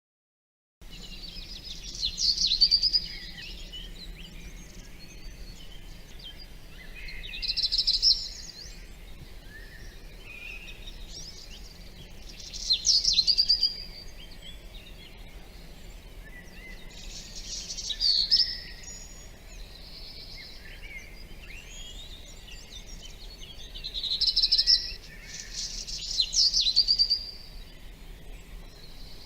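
Songbird singing short, bright phrases of chirps and trills roughly every five seconds, with fainter calls between them, over a steady low background rumble. It starts about a second in.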